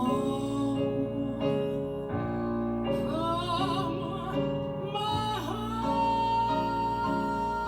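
A woman singing a slow spiritual with a wavering, vibrato-laden line over soft instrumental accompaniment. She settles into a long held note near the end.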